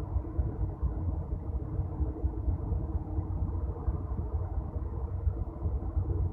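A moving train running: a steady low rumble with a faint, even hum over it.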